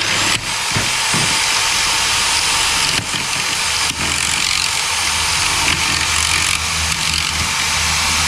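Corded reciprocating saw (Sawzall) running at full speed, cutting through the screws that fasten the fence boards to the post. It starts abruptly and runs steadily, with a couple of brief dips.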